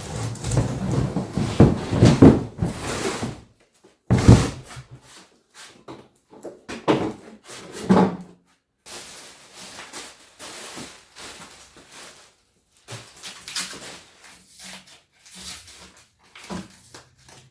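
Cardboard shipping box scraping and rustling as a heavy lawn mower is worked out of it, with a sharp thud about four seconds in and a couple more knocks a few seconds later, then fainter rustles and clicks.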